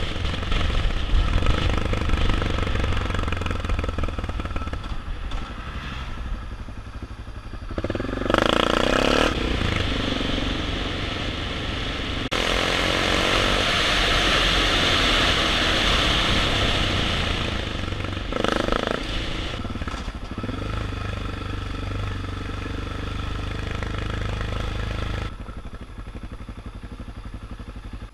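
BMW F650GS motorcycle engine running as it is ridden over a rough off-road track. Around the middle there are several seconds of louder rushing noise over the engine, and the sound is somewhat quieter near the end.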